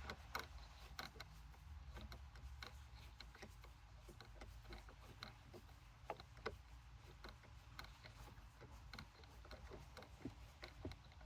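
A long screw being driven in with a screwdriver: a string of faint, irregular small clicks and ticks.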